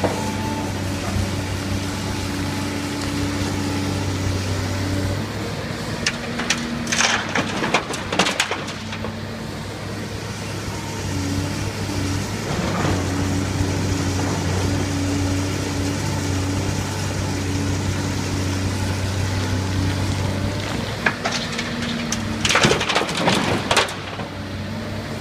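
LiuGong 925D hydraulic excavator's diesel engine running steadily, its pitch stepping up and down as the hydraulics take load. Two spells of sharp knocks and scraping come through, about six to nine seconds in and again near the end.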